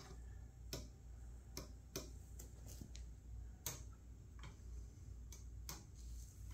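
Faint, irregularly spaced light clicks, about eight in all, as the metal tip of a continuity-tester probe touches the slot car track's metal rails, over a low steady hum.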